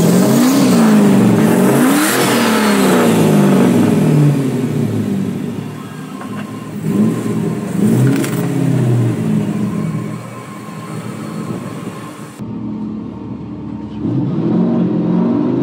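Turbocharged Hemi V8 in a truck revving up and dropping back several times under load while trying to climb over a rock, with a couple of sharp knocks midway. The front locker is not engaging, so the truck cannot climb.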